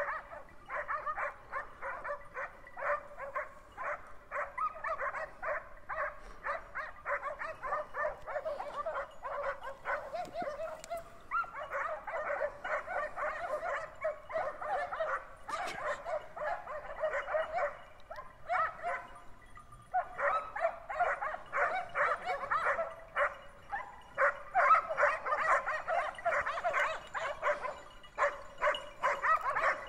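Hunting dogs on a wild boar hunt barking and yelping in a fast, almost unbroken run, with short lulls about eleven and nineteen seconds in.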